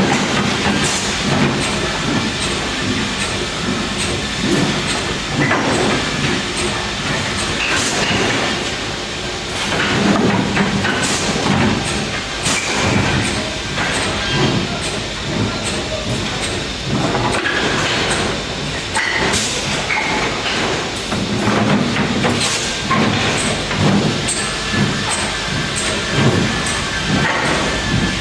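Mostly Printed CNC (MPCNC) machine making fast moves, its stepper motors whining in short tones that change pitch every fraction of a second as the head speeds up, slows and changes direction, over a steady hiss.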